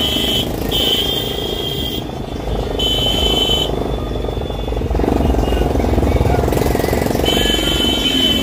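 Loud traffic din of trucks and motorcycles crawling through a packed road: engines running, voices in the crowd, and a high steady tone that starts and stops several times.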